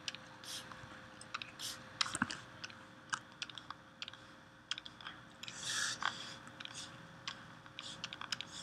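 Faint, sparse and irregular clicks of a computer mouse and keyboard keys, with a faint steady hum underneath.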